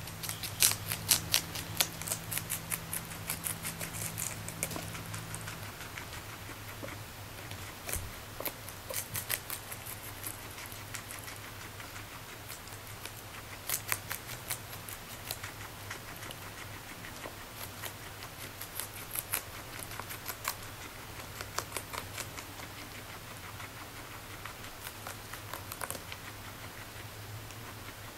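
Guinea pig chewing sunny lettuce: quick runs of crisp crunching clicks that come in bouts and pause between them. A low hum underneath stops about six seconds in.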